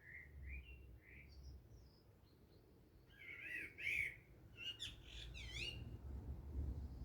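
Small birds chirping and calling: a few short chirps at first, the loudest calls about three to four seconds in, then a quick run of dipping notes.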